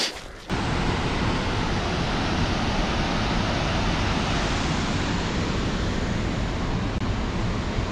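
A runner's footfall, then about half a second in a waterfall's steady rushing sets in abruptly and holds on evenly.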